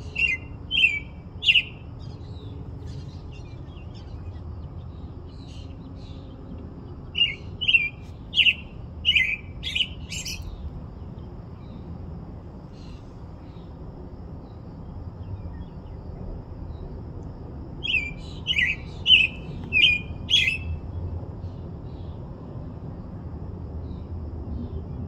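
American robin singing: three runs of short, clear notes, four to six notes each, separated by long pauses, over a steady low background rumble.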